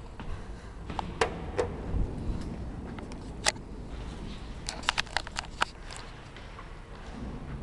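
Scattered sharp clicks and knocks over a steady low rumble: a few single ones, then a quick run of about seven in a second near the middle.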